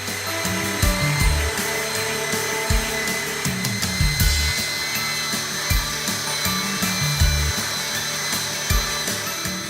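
Portable belt sander running a zirconia sanding belt against wood: a steady high whine with an even sanding hiss, under background music with a moving bass line.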